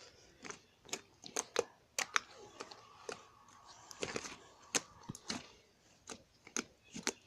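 Slime being squished and stretched in the hands, making irregular small wet clicks and pops.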